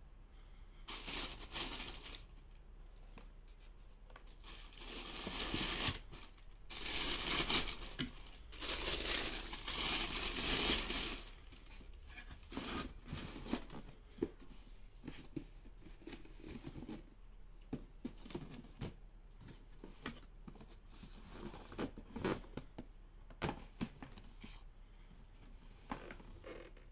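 Shoe-box tissue paper rustling and crinkling in several long bursts, then cardboard shoe boxes being handled, with scattered light knocks and taps.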